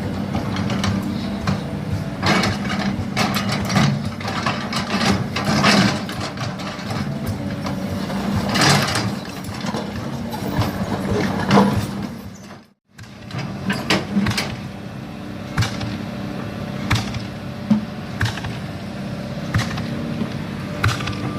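Cat 320D hydraulic excavator's diesel engine running steadily under work, with repeated knocks and scrapes, typical of the bucket working soil while shaping a slope. The sound cuts out for a moment about halfway through.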